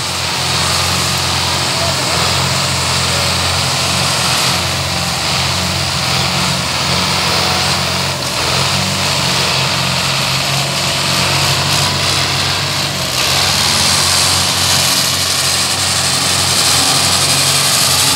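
Belarus 510 tractors' diesel engines running under heavy load as two tractors in tandem pull a loaded sugarcane trolley: a steady engine drone that grows a little louder in the last few seconds.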